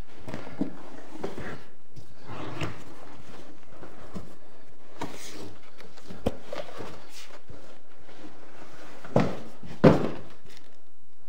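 Large cardboard bike box being lifted and slid up off a foam-packed e-bike: cardboard scraping and rustling, ending in two heavy thumps less than a second apart as the box is set down on end.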